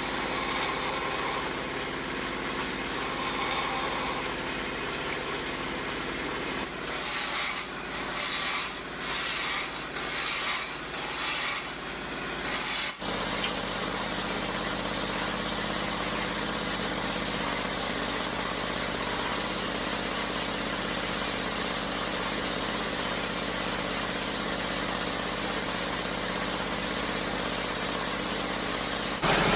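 Woodworking machinery working wood, giving a steady rubbing, rasping machine noise. In the middle comes a stretch of about half a dozen short strokes, each broken by a gap, before a steady run resumes.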